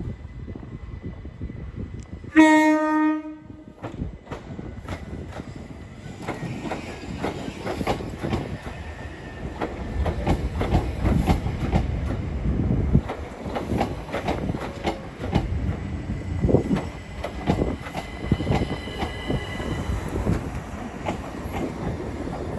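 A Class 377 Electrostar electric multiple unit sounds one horn blast lasting about a second. It then moves off through the station with a steady rumble, its wheels clattering over the rail joints.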